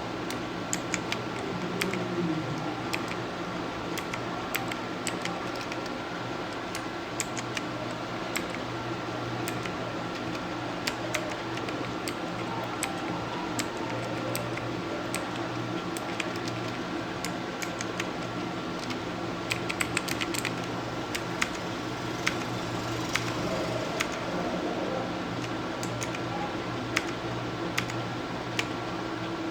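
Keys of a Circle Gaming Squadron M mechanical keyboard with Kailh switches clicking as they are pressed, at an uneven pace with a quicker run of presses about two-thirds of the way in, over a steady faint hum.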